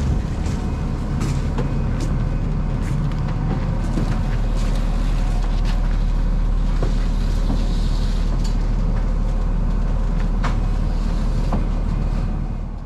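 An engine running steadily with a low rumble, with scattered light clicks and knocks, while pallets are loaded onto a truck.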